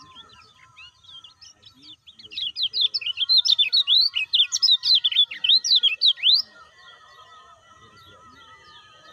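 White-eye (kecial kuning) singing a fast, loud burst of high chirping notes, each sweeping sharply up or down. It starts about two seconds in and breaks off after about four seconds, with fainter chirping before and after.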